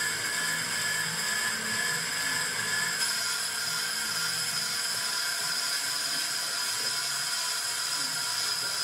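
Pro-Cut on-car brake lathe running, spinning a car's brake rotor on its hub while the cutting bits take a pass across the rotor faces: a steady high-pitched whine with a hiss. The upper tones grow stronger about three seconds in.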